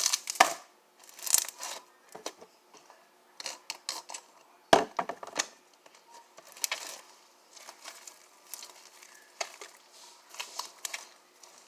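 Glitter slime with small jewels mixed in being squished and stretched by hand, giving irregular clicks and crackles, the loudest about five seconds in.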